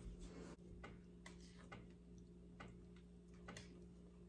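Faint, irregular taps and scrapes of a silicone spatula against a glass mixing bowl as thick cake batter is folded by hand.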